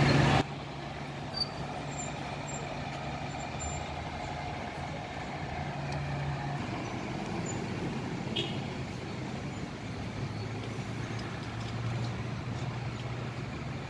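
City street traffic: a large vehicle's engine runs steadily nearby over general road noise, as a low hum that drops slightly in pitch about halfway through.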